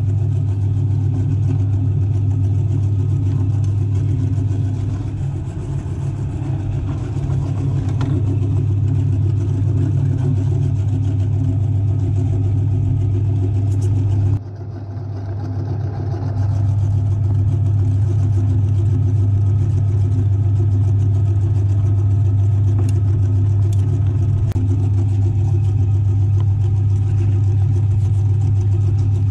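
Belt-driven electric meat grinder running steadily, its electric motor giving a loud, steady low hum as raw meat is fed through and minced.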